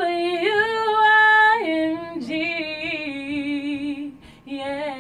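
A woman singing a radio station jingle unaccompanied, holding long notes that step down in pitch, with vibrato on the later notes and a short break about four seconds in.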